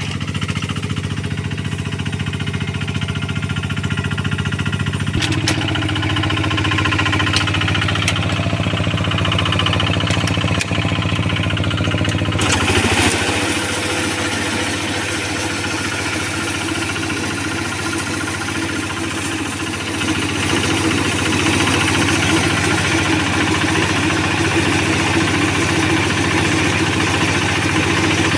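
Quick QH-11 combine harvester's engine running steadily during rice harvesting. About twelve seconds in, a louder, noisier mechanical rattle joins the engine hum.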